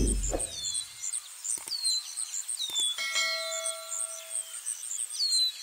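Birds chirping, with a quick high chirping and a short falling call about once a second. A subscribe-button sound effect adds two clicks and then a bell-like chime about three seconds in.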